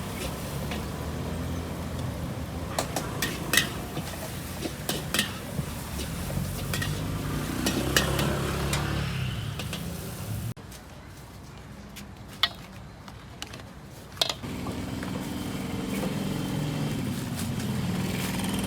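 Wok cooking at a street food stall: a metal spatula clanking and scraping against a wok in sharp scattered strikes over a steady low rumble. The whole sound drops suddenly about ten seconds in, then the rumble and clanks carry on more quietly.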